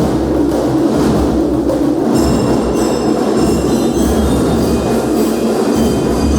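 Marching band (banda de guerra) playing: a dense, steady drum cadence with high ringing notes above it.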